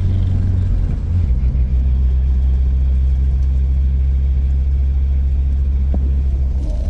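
BMW 320 touring's petrol engine running at low revs, heard from inside the cabin while driving through snow; the engine note drops slightly about a second in, then holds a steady low hum.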